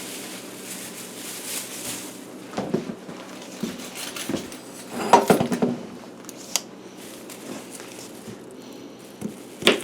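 Dishes and utensils being handled, with scattered light clinks, clicks and rustling, and a sharper click near the end.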